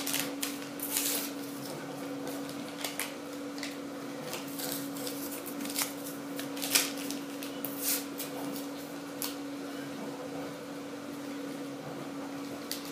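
A paper sachet of yeast being handled, torn open and shaken out, giving scattered crinkles and sharp paper crackles. A steady low hum runs underneath.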